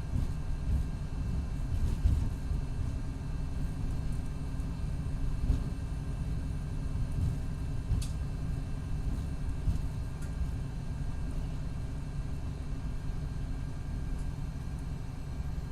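2019 MCI D4500CT coach with a Cummins ISX12 diesel and an Allison B500R automatic transmission that is in its last stages, giving a steady low rumble with a few light knocks and one sharp click about eight seconds in.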